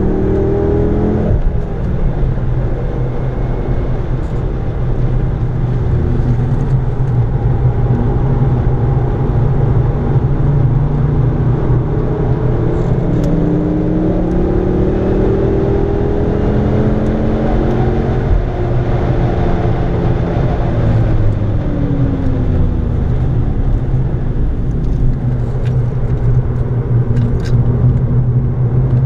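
Ford Focus ST engine heard from inside the cabin, driven hard on track: the engine note climbs slowly through long pulls and drops sharply at gear changes about a second in and again near eighteen seconds, then falls off for a few seconds around twenty-two seconds as the car slows. A steady rush of tyre and wind noise runs underneath.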